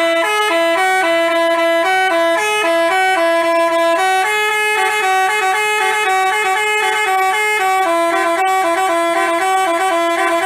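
Basuri 'telolet' musical bus horn playing a tune: a quick run of held, stepping horn notes.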